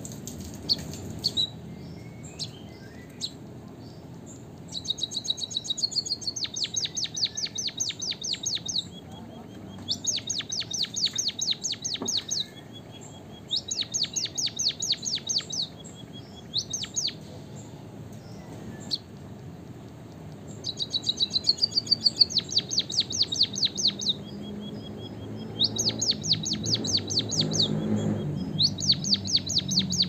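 White-headed munia singing: repeated bouts of rapid, high chirping notes, each a few seconds long, with short pauses between them.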